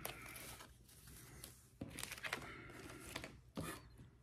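Faint rustling with a few light clicks as hand-held surgical instruments are picked up and handled, the clicks about two seconds in and again near the end.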